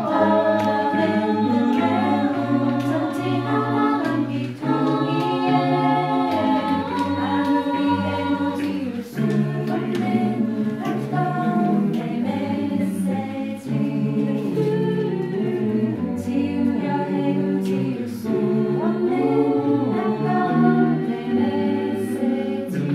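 Small mixed choir of men and women singing a cappella in several parts, with sustained harmonies and no instrumental accompaniment.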